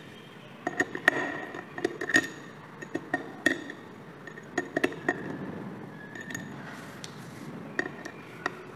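Small screwdriver working the screws of a hard disk drive's platter clamp: irregular light metallic clicks and clinks, some with a brief ringing tone, with a quieter gap past the middle.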